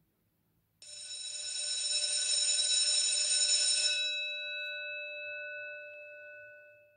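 Electric school bell ringing: it starts a little under a second in, rattles for about three seconds, then stops and its tone rings on and fades out over the next three seconds.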